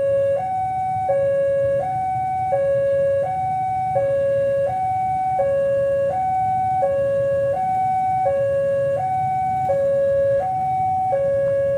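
Railway level-crossing warning alarm sounding its electronic two-tone signal. It alternates evenly between a lower and a higher tone, each held about three-quarters of a second, steady in pitch and loudness.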